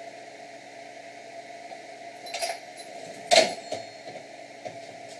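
A few light metallic clinks and knocks, the loudest a sharp clank about three and a half seconds in, over a steady motor hum.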